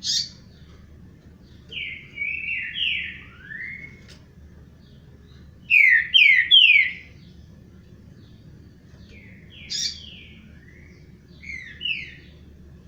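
Songbird singing in short phrases of quick slurred notes, one phrase every few seconds. The loudest phrase is a run of three falling notes about six seconds in.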